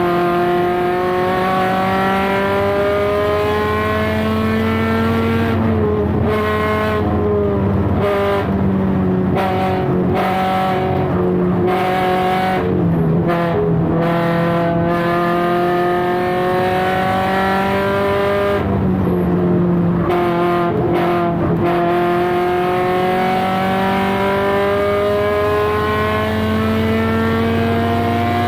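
2013 Subaru BRZ's flat-four boxer engine at racing speed. It pulls hard with the pitch climbing slowly over several seconds, and drops sharply a handful of times at lifts and gear changes.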